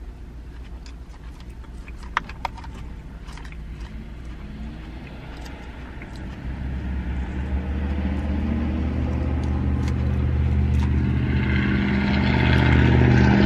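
A motor vehicle's engine grows steadily louder from about halfway through, a low droning hum building as it comes close, heard from inside a car. A couple of light clicks come about two seconds in.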